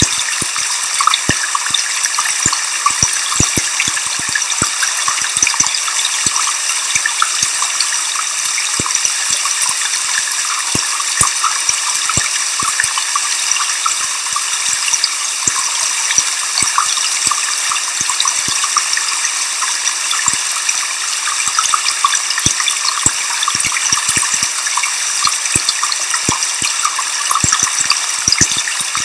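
Steady rushing of a waterfall mixed with white noise: an even, high-pitched hiss with little low rumble, dotted with faint scattered ticks.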